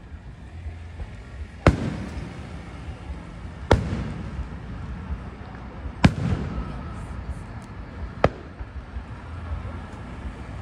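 Aerial fireworks bursting overhead: four sharp bangs about two seconds apart, each followed by a brief echo, over a steady low rumble.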